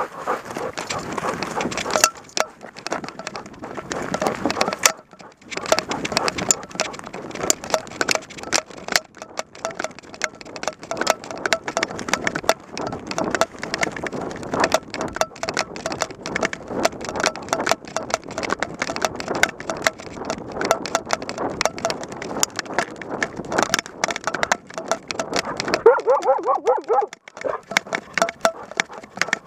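A dog-mounted camera rubbing and jolting as a hunting dog runs through forest undergrowth: dense, irregular rustling and crackling of twigs and vegetation against the camera, with paw falls. There is a brief pitched cry near the end.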